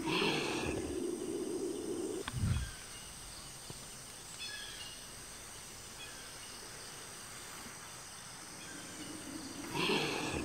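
Evening outdoor ambience in woods by a lake: a steady high insect drone with a few faint bird chirps. A low hum fades out about two seconds in and returns near the end, and a soft low thump comes a couple of seconds in.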